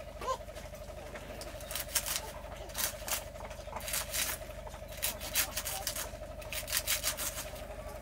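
Fresh leafy greens being sliced with a hand-held sickle-type blade, a run of short, crisp cutting strokes at uneven intervals. A steady faint hum runs underneath.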